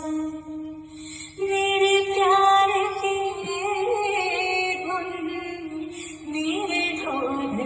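Recorded song with a female voice singing long, ornamented notes, played through an N-LABS QLA-122 line-array PA speaker. A louder sung phrase comes in about a second and a half in.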